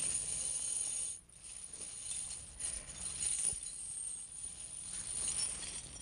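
Steel truck tire chains jangling and clinking as they are handled, in uneven bursts with a brief break about a second in.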